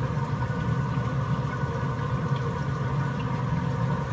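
Steady hum of a Pit Boss 1150PS pellet smoker's combustion fan running, a low drone with faint thin whines above it.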